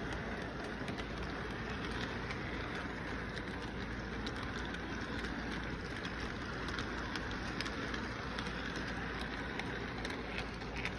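Toy intermodal train cars rolling past on model track: a steady rolling rumble with many small rapid clicks from the wheels on the rails.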